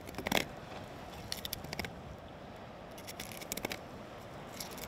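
A dull knife filleting a striped bass on wooden planks: short, crackly scraping cuts through skin and flesh, coming in small bursts every second or so.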